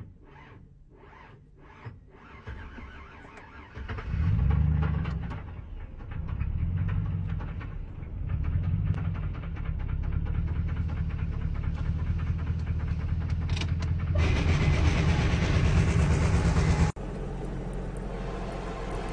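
A Ford car heard from inside the cabin while reversing: a loud, low, wavering hum sets in about four seconds in and keeps going, an odd noise the driver cannot account for. Near the end it cuts off suddenly and a steady vehicle rumble follows.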